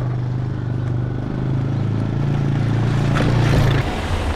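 A motor or engine running with a steady low hum that shifts up in pitch a couple of times and grows louder, then drops away suddenly near the end.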